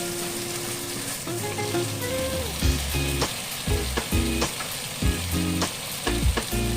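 Sliced lamb leg sizzling as it fries in oil in a pan, stirred with a utensil that strikes the pan at irregular intervals from about two and a half seconds in.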